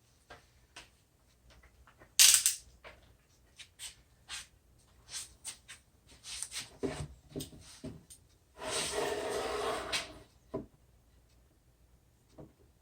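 Scattered clicks and knocks of tools and wood being handled on a workbench, with one sharp knock about two seconds in, then a rasping stroke lasting about a second and a half.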